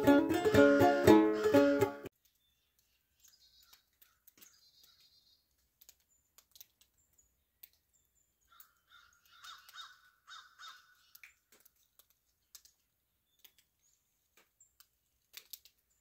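Banjo playing in a steady rhythm that cuts off abruptly about two seconds in. After that it is quiet, with scattered faint ticks and, around the middle, a short run of faint crow caws.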